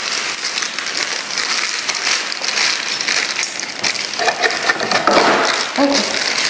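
Dry cake mix pouring from its bag into a mixing bowl: a steady, grainy rustling hiss.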